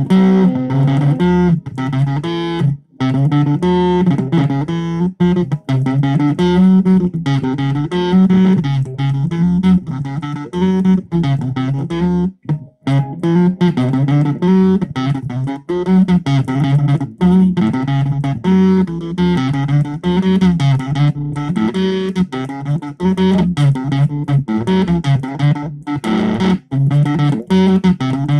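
Electric guitar riff played through a Zoom 506 bass distortion pedal: a crunchy, fast-moving pattern of low notes repeating over and over, with two short breaks about 3 and 12 seconds in.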